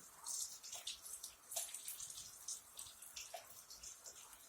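Water from a tap running and splashing as hands are washed at a sink, faint and irregular.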